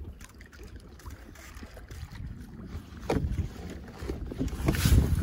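Water splashing and sloshing against a kayak as a man in a drysuit hauls himself up onto it from the water, with a sharper knock about three seconds in. Wind buffets the microphone, getting much louder near the end.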